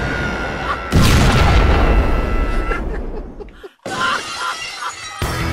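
Explosion sound effect: a sudden loud blast about a second in that rumbles and dies away over a couple of seconds, over a held tone. Music starts about four seconds in.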